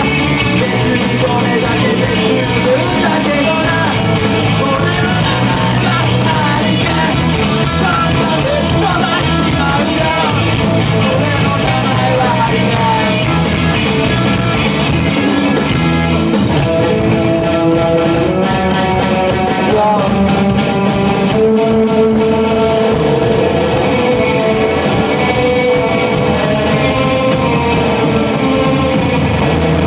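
Loud punk rock band music: electric guitars and drums with a singing voice.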